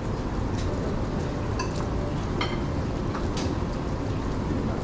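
Steady rumbling room noise of a busy buffet dining room, with a handful of light metal clinks from serving tongs picking up cold cuts.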